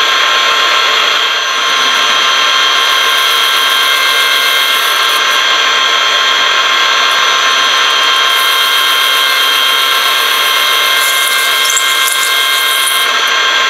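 Metal lathe running with a steady whine while a trepanning tool cuts a groove into the face of a spinning acetal blank. A high hiss from the cut comes and goes as the tool feeds in.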